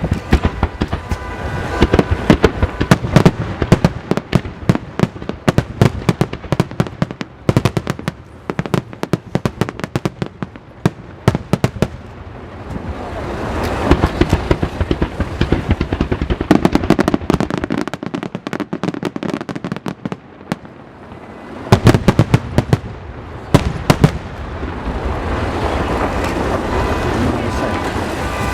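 Fireworks display going off: rapid volleys of sharp bangs and crackling, broken by stretches of steadier hissing crackle, with a cluster of loud bangs a little past two-thirds of the way through.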